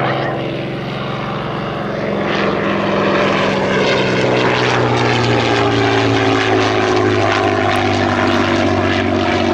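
Hawker Fury biplane's supercharged Rolls-Royce Kestrel V-12 engine and propeller running steadily in flight, the engine note falling slowly in pitch through the second half.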